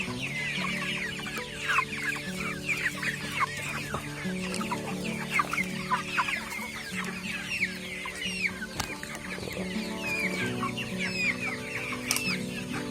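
A flock of young broiler chickens peeping and clucking, with many short, high cheeps that fall in pitch, overlapping throughout.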